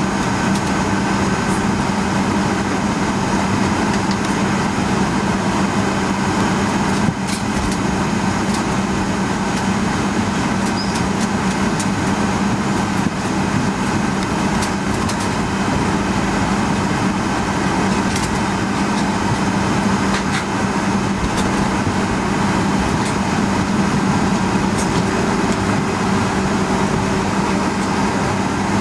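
Cabin noise of a Boeing 757-200 taxiing, its Pratt & Whitney PW2037 turbofans at idle: a steady hum with a low drone, heard from inside the cabin. A few faint clicks and rattles come through here and there.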